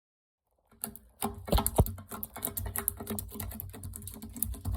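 Slime being squished and poked by hand, a quick irregular run of small clicks and pops that starts just under a second in.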